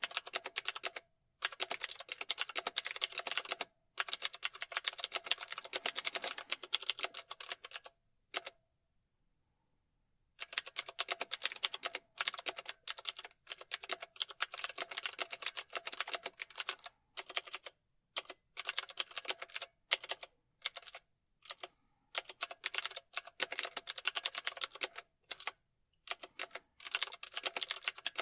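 Typing on a computer keyboard: fast, continuous runs of key clicks broken by short pauses, with one silent gap of about two seconds roughly a third of the way through.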